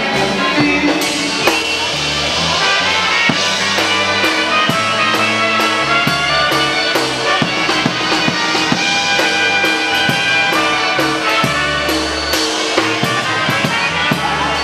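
A live polka band playing an instrumental passage, with the drum kit keeping a steady beat under sustained melody notes.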